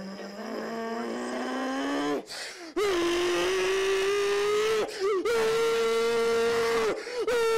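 A man's voice yelling in long, drawn-out held notes: four of about two seconds each with short breaks, the first lower and slowly rising, the later ones higher.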